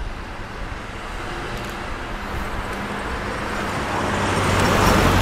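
SY-class 2-8-2 steam locomotive working a loaded train of coal wagons, its exhaust a dense, steady noise that grows steadily louder.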